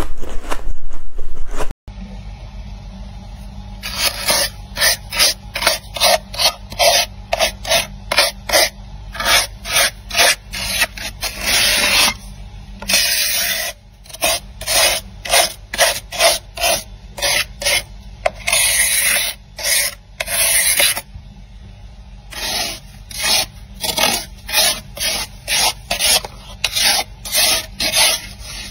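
Thick freezer frost being scraped off the inside walls of a freezer in repeated quick strokes, about two or three a second, with a few longer drawn-out scrapes. It opens with a second or so of close-up crunching as frost is chewed, cut off abruptly.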